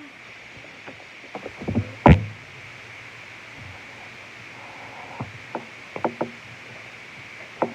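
Slime being worked by hand: a scattered run of short, sharp clicks and pops, the loudest about two seconds in, with a few more clusters later.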